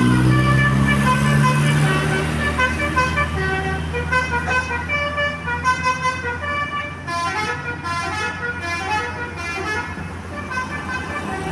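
Basuri V3 'telolet' multi-tone bus horn playing a quick tune of short, high notes that step up and down. A deeper sustained note sounds under it for the first two seconds or so, then fades.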